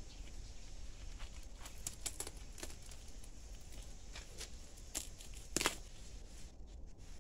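Ripe watermelon being broken apart by hand: irregular cracks of rind and flesh splitting, the loudest about five and a half seconds in.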